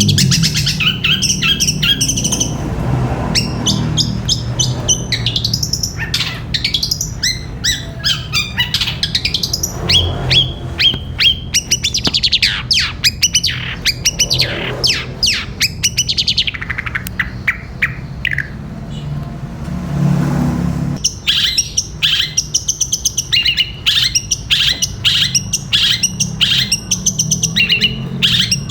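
Long-tailed shrike (cendet) singing a long, busy song of rapid chirps and sweeping whistled notes in the 'gereja petir' style, rich in sparrow-like chatter. It breaks off briefly about two-thirds of the way through, then resumes with fast repeated chirps over a steady low hum.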